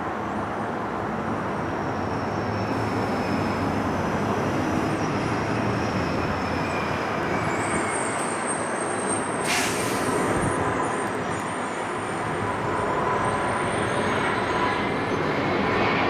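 Airbus A380 airliner's four jet engines on approach: a steady rushing noise that grows louder as the plane closes in overhead. A thin high whine slides slowly down in pitch early on, and a higher whine joins in the second half.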